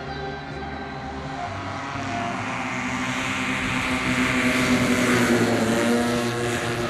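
Four single-cylinder 38cc petrol engines of a giant 1/6 scale model Avro Lancaster, driving two-blade propellers on a low flypast. They grow louder as the plane approaches, are loudest about five seconds in, and their pitch falls as it passes.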